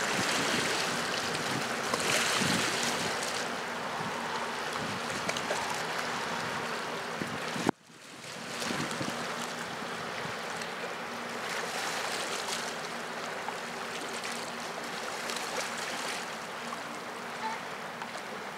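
Wind rushing on the microphone over the moving water of a fast-flowing river, with a steady low hum of boat engines beneath it. The sound cuts out abruptly for a moment about eight seconds in, then returns.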